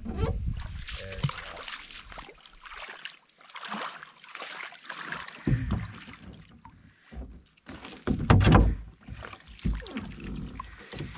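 Water splashing and sloshing around a canoe as a person wading beside it climbs aboard, with irregular knocks and bumps against the hull; the loudest thump comes about eight seconds in.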